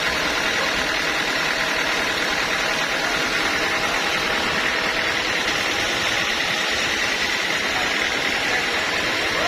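Sawmill machinery running steadily: a constant engine-like noise with a steady high whine over it.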